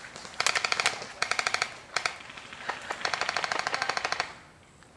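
Airsoft rifle firing on full auto: two short rapid bursts, a single shot about two seconds in, then a longer burst of just over a second.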